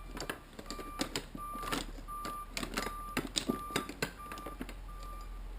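Short electronic beeps at one steady pitch, repeating about every half second to a second, mixed with scattered clicks and knocks of handling tools or parts over a low steady hum.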